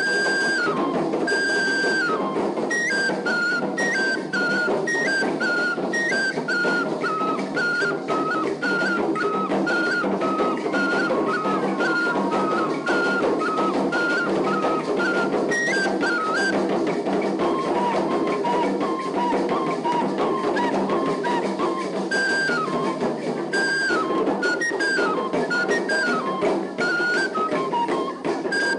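Traditional northern Ghanaian drum ensemble playing a steady, dense dance rhythm, with a high-pitched melody of short stepped notes over the drums. The melody pauses about two-thirds of the way through and then comes back.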